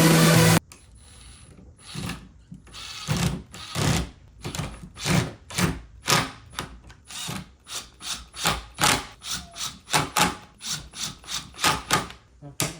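Short scraping strokes of a hand tool working wood, repeated about two to three a second, each swelling and fading. Music cuts off suddenly under a second in, before the strokes begin.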